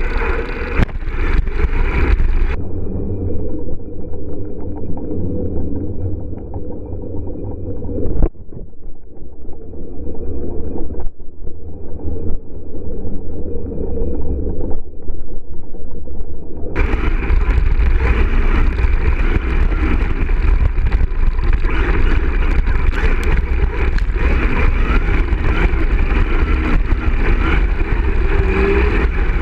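Onboard sound of a Traxxas X-Maxx 6x6 RC monster truck driving over grass: its brushless electric motor and drivetrain running, with a heavy low rumble from the ride. From about 3 to 17 seconds in the sound turns muffled, then clears again.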